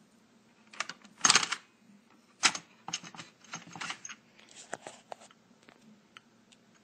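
Clicks and clattering of hard objects being handled: a loud rattle about a second in, another sharp click a second later, then a run of smaller clicks and taps that thins out to a few faint ticks.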